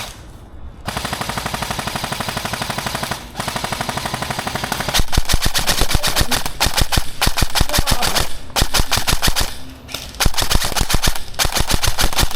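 Airsoft guns firing long full-auto bursts: rapid, evenly spaced clicking shots in several strings, with the fire getting louder about five seconds in.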